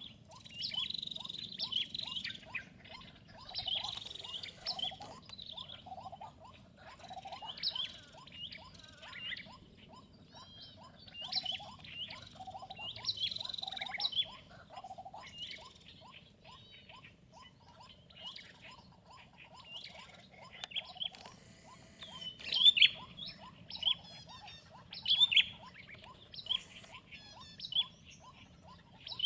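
Several birds calling and chirping in short repeated phrases, a few sharp calls louder near the end, over a steady rapid ticking.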